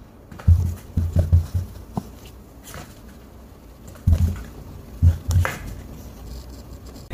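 Kittens scrambling about inside a box: irregular dull thumps and bumps of small bodies and paws against the box, with light scratching. A cluster of bumps comes about half a second to a second and a half in, and more around four to five and a half seconds as one kitten climbs out over the edge.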